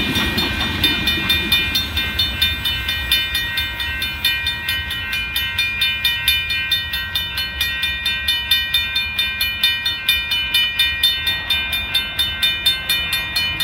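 Railroad grade-crossing bells ringing steadily, about three strikes a second, while the crossing signals flash. The rumble of the last hopper cars of a sand train rolling past fades away within the first second or two.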